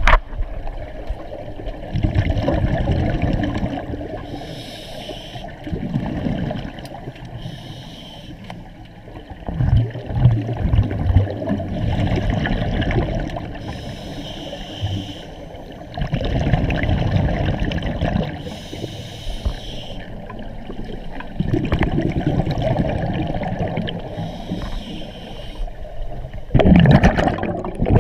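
Scuba diver's breathing heard underwater: rumbling bursts of exhaled bubbles from the regulator about every four to five seconds, alternating with a quieter hiss on the inhale.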